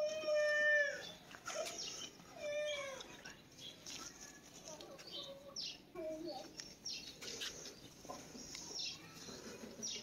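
Two drawn-out animal calls, the first lasting about a second, the second shorter and falling in pitch, followed by scattered faint bird chirps and soft scrapes of soil being pressed down by hand.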